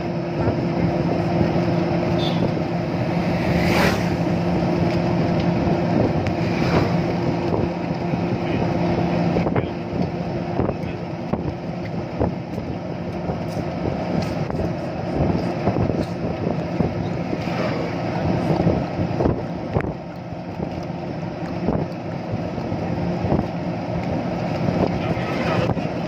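Steady rumble of a moving vehicle with wind noise. A low, steady hum runs under it for about the first nine seconds, then drops away, and faint clicks and knocks are scattered through.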